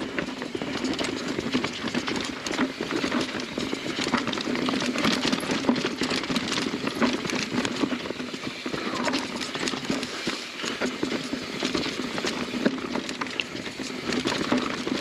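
Mountain bike rattling and clattering as it rolls fast down a rough, rocky trail, with a steady run of quick irregular knocks and tyres crunching over dirt and stones.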